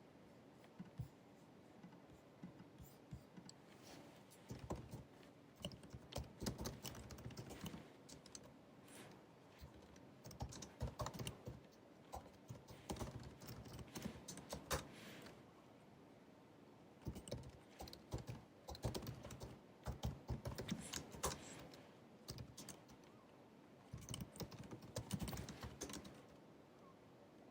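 Typing on the built-in scissor-switch keyboard of a 2019 16-inch MacBook Pro: quick runs of key clicks in bursts of a few seconds, with short pauses between them.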